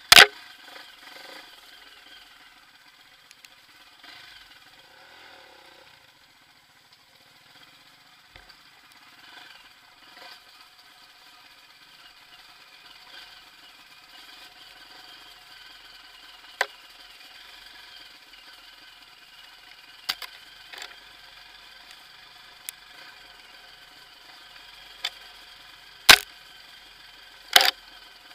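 Bike ride over a rough forest trail, heard from a mounted camera: a faint steady hum under scattered sharp knocks and clatters from bumps, the loudest right at the start and twice near the end.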